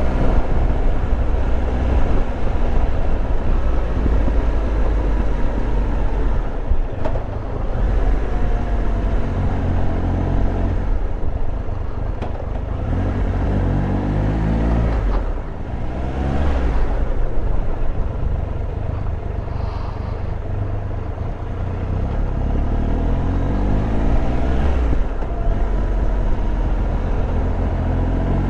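Triumph Tiger Explorer 1200's three-cylinder engine heard from the saddle while riding, over a steady low rumble. Its pitch rises several times as it pulls away and accelerates, about halfway through and again near the end, dropping back in between.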